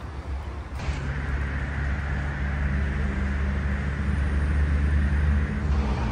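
Steady low rumble of a motor vehicle with a faint steady hum, setting in about a second in after a cut.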